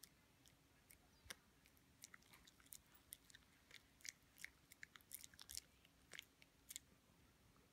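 Poodle chewing a snack with its mouth open: a run of quick, irregular clicks and crunches.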